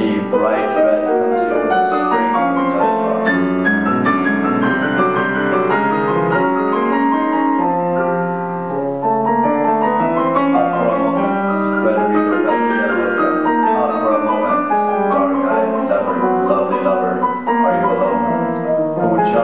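Grand piano playing a busy contemporary concert piece, many notes sounding in quick succession, thinning out briefly about eight seconds in.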